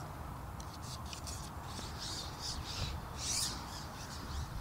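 A bird giving a rapid series of harsh, noisy calls, about three a second, starting about a second and a half in. A few light clicks come before the calls, over a low wind rumble on the microphone.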